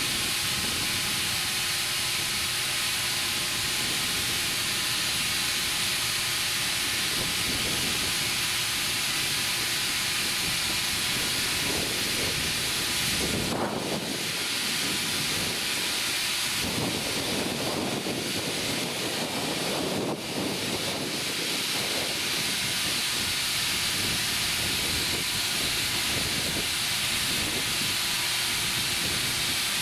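Compressed air hissing steadily into a 20.8R38 tractor inner tube as it inflates, with a few swells of lower rushing noise in the middle.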